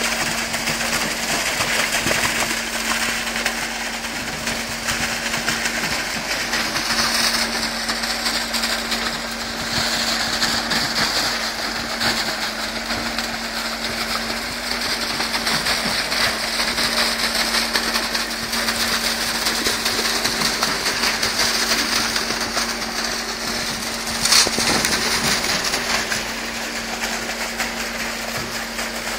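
Concrete pump truck running steadily while pushing concrete through the boom's end hose into a foundation footing trench: a constant engine hum under a rushing noise that swells and eases every few seconds. A single sharp knock comes late on.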